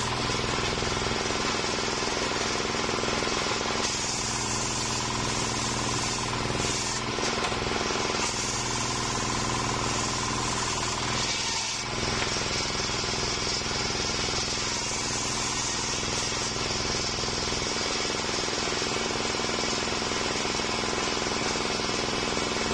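Homemade table circular saw ripping a waru (sea hibiscus) log into slats: the blade cutting through green wood over the steady hum of the drive. The sound lets up briefly about twelve seconds in, then the cutting resumes.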